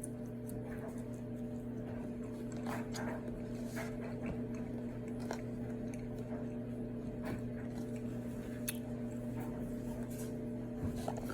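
A person quietly chewing a French fry, with small scattered mouth clicks over a steady low electrical hum.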